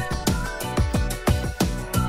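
Background music with a steady electronic drum beat and a melody line.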